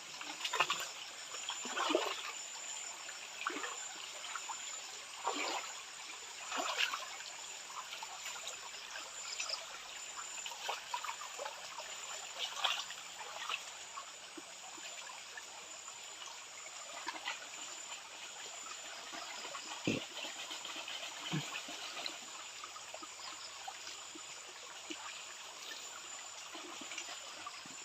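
Shallow water trickling, with scattered light irregular splashes and a small knock about two-thirds of the way through.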